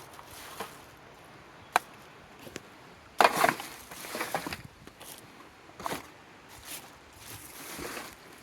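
Irregular dry woody snaps and crunches, a few single cracks and short clusters, the loudest a little after three seconds in.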